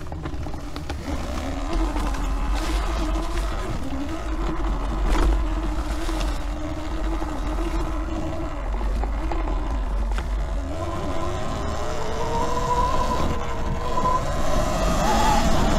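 Eride Pro SS 72V electric dirt bike's motor whining as it rides a trail, the pitch wandering up and down with the throttle and climbing about twelve seconds in as it speeds up. A steady low wind rumble on the microphone runs underneath.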